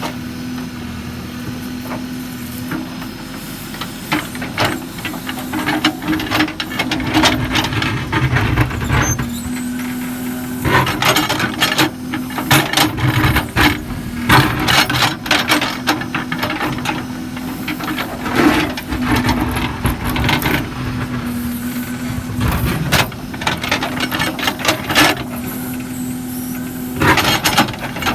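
Case 770 backhoe loader's diesel engine running steadily, with repeated sharp squeals and clanks from about four seconds in as the machine works.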